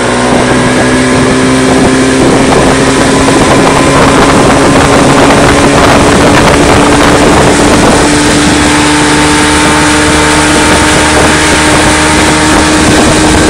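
Outboard motor running a small open boat across a lake at steady cruising speed, its hum rising slowly in pitch.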